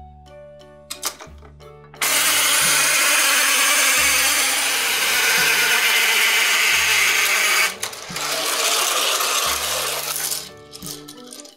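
Battery-powered toy playset running: its small motor whirs and the plastic gears and track rattle loudly for about six seconds. After a brief break a second stretch of plastic rattling follows as the toy cart comes down the track. Light children's music plays underneath.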